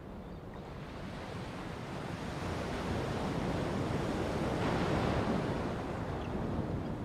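Ocean surf with strong wind buffeting the microphone, a steady noise with a low rumble that swells to its loudest about five seconds in and then eases off.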